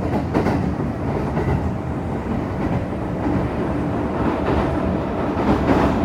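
Kintetsu 2610 series electric train running at speed, heard from inside a passenger car: a steady rumble of wheels on rail with a few clicks over rail joints.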